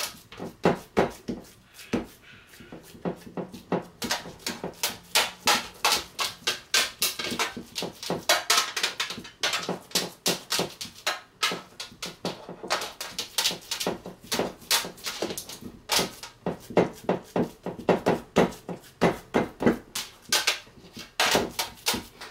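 Hands patting and pressing raw ground-beef meatloaf mixture flat in a roasting pan: soft wet slaps, three or four a second, in bursts with short pauses.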